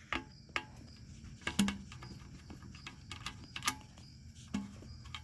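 Scattered light clicks and taps of tools and small metal parts being handled while a part is taken off a moped, with a couple of soft knocks.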